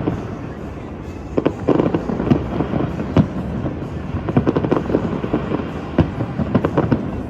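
Fireworks bursting in a continuous barrage: a steady rumble of crackling, broken by sharp bangs, with the loudest bangs about three seconds and six seconds in.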